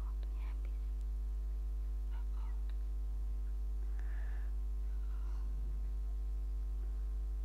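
Steady low electrical mains hum with a stack of steady overtones above it, with a few faint, indistinct voice-like sounds underneath.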